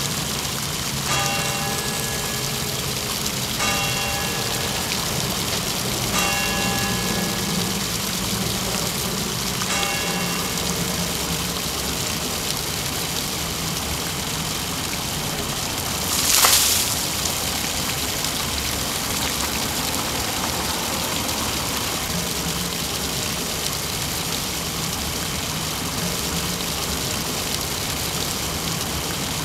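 Fountain water pouring and splashing steadily into a stone basin. A bell strikes four times, about two and a half seconds apart, in the first ten seconds, and a single short loud rush of noise comes midway.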